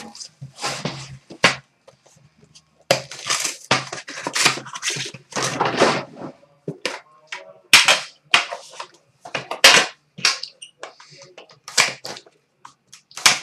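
Hands tearing the plastic wrap off a hockey card tin and opening it: a string of irregular sharp crackles, clacks and knocks, with a couple of short pauses.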